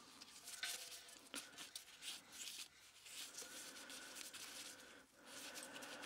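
Faint rubbing and scraping with a few light clicks: a small metal manifold block being handled and set in place on a copper model steam locomotive boiler.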